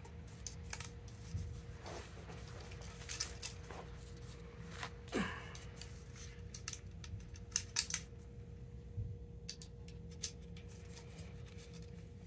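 Plastic tennis-racquet grommet strips being handled and pressed onto a Head Radical frame: scattered light clicks and rattles of plastic, with one short falling squeak about five seconds in.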